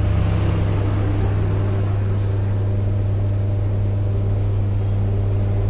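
A steady low hum made of a few fixed tones, unchanged throughout, with no clicks or knocks standing out.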